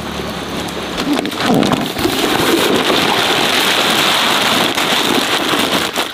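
A clear plastic bag crinkling and rustling as hands grip and shift it inside a woven bamboo basket. A dense, loud crackle starts about a second in.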